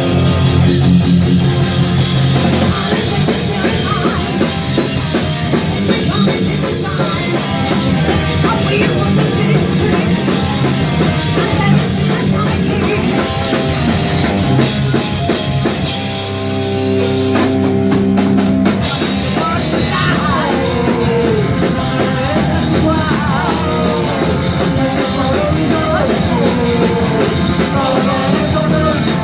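Live punk rock band playing loud with distorted guitars, drum kit and vocals; the chords hold and the drive eases briefly just past halfway, then the full band and singing pick up again.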